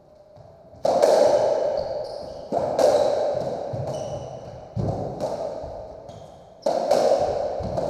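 Racketball rally on a squash court: four loud cracks of racquet and ball against the walls, about two seconds apart, each ringing out in a long echo off the hard walls.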